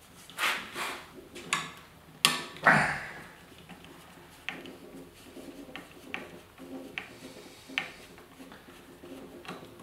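Metal clicks and knocks from handling the pivot bolt and a tool against the cast frame of a Delta scroll saw. There are several sharp knocks in the first three seconds, then lighter ticks a little under a second apart.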